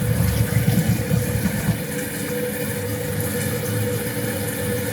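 Toilet fill valve running as the tank refills: a steady hum with a thin held tone, and some low knocks in the first couple of seconds.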